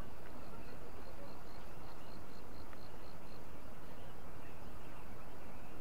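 Small birds chirping over a steady hiss. Partway through, one call repeats a short high note rapidly, about five times a second, for a couple of seconds.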